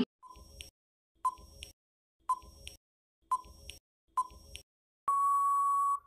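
Quiz countdown timer sound effect: five short beeps about a second apart, then one long steady beep of about a second as time runs out.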